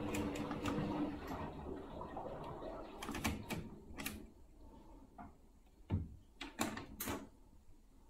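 Candy front-loading washing machine: its running hum dies away within the first second or so, then the rotary program selector dial clicks sharply several times as it is turned through its positions, the loudest clicks near the end.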